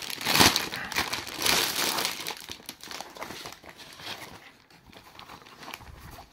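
Clear plastic packaging bag crinkling as a fabric cable-organiser pouch is pulled out of it. The crinkling is loudest in the first couple of seconds and gives way to quieter handling.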